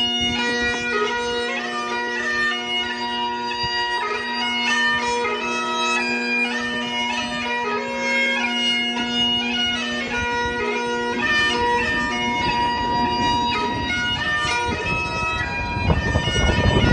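Bagpipes playing a slow tune over a steady drone. A rushing noise rises under the piping near the end.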